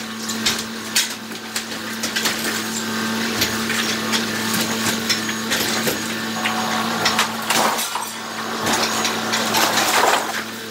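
Yanmar mini excavator's engine running steadily while its arm tears down a wall, with broken concrete and panels knocking and clattering down irregularly. A heavier rush of falling debris comes twice in the last few seconds.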